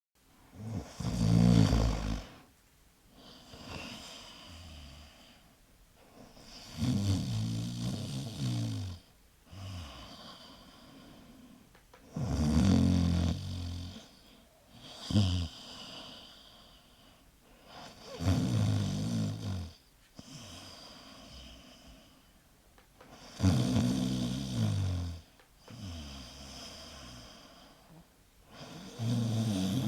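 A senior pug snoring in its sleep: a loud, low snore about every five and a half seconds, six in all, with a softer, higher breath between each.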